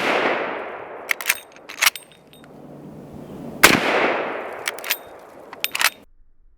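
Marlin 1895 Guide Gun lever-action rifle in .45-70 firing twice, about three and a half seconds apart, each shot echoing away. After each shot come several sharp metallic clacks as the lever is worked to chamber the next round.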